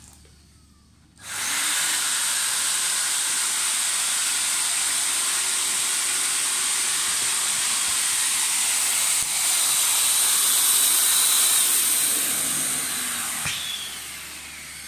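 Electric air pump blowing air through a corrugated hose into the tube of a PVC inflatable boat, inflating it. It starts suddenly about a second in, runs steadily with a loud hiss, and winds down near the end.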